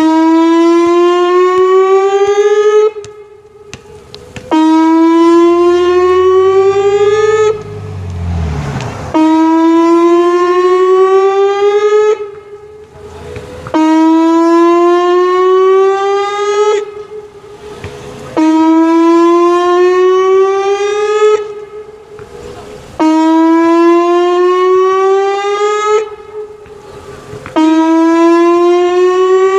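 Whelen WPS 2810 electronic outdoor warning siren sounding its Saturday-noon test tone. Each loud pass rises slowly in pitch for about three seconds, then falls away. This repeats about every four and a half seconds as the rotating speaker head sweeps toward and away from the listener.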